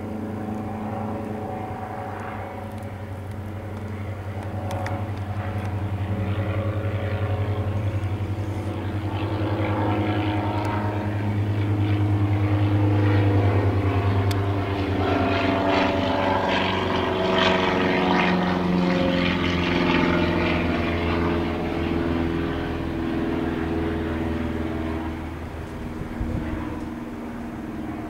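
A steady engine drone, swelling to a peak about halfway through and slowly fading.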